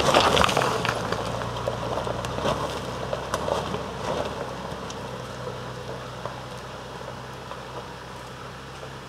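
Toyota Land Cruiser Prado four-wheel drive crawling up a steep, rocky dirt track. Its engine runs steadily and fades as the vehicle moves away, and scattered ticks and crackles come from stones and twigs under the tyres.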